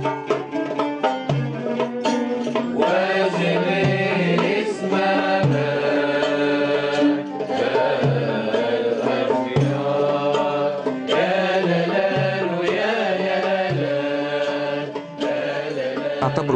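Tunisian mâlouf music: an oud plucking a melody over low goblet-drum strokes. From about three seconds in, several voices join in singing.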